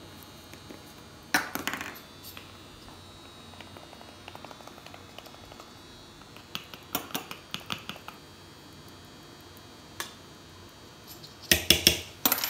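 Light clicks and clinks of metal measuring spoons and a small spice jar being handled while cinnamon is measured out, with a cluster of louder clinks near the end.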